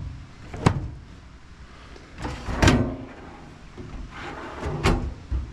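Large metal drawers of a Husky mobile workbench being slid open and shut on their runners, three times, each ending in a sharp metal clack.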